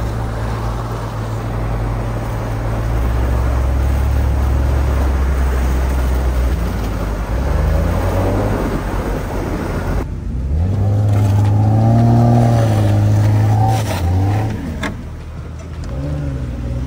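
Steady low engine drone and tyre noise from a Jeep driving on a snowy trail. About ten seconds in it gives way to a Jeep Cherokee XJ's engine revving up and down, rising then falling over a few seconds, as it struggles in a snow-filled ditch, then settling back toward idle.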